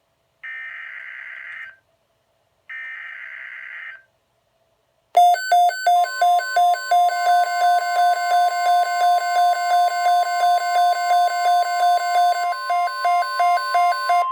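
Two SAME digital header bursts from a NOAA Weather Radio broadcast, short raspy data buzzes, followed about five seconds in by the weather radio's alert alarm beeping rapidly and loudly, with the steady 1050 Hz NWS warning alarm tone sounding beneath it a second later. The sequence is the activation signal for a new weather alert.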